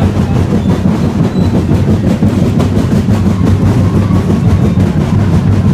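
A street drum band beating a fast, unbroken rhythm, very loud and distorted, with a heavy low rumble.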